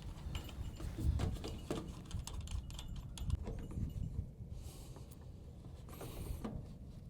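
Light clicks and small rattles from handling and fastening the ends of electric fence wire, with two short rustles about four and a half and six seconds in.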